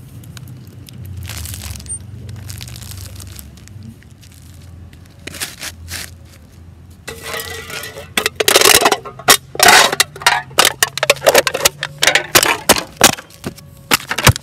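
A few faint crackles at first; about seven seconds in, loud, rapid crunching and crackling starts as something brittle is stamped on underfoot against asphalt, with sharp crunches several times a second.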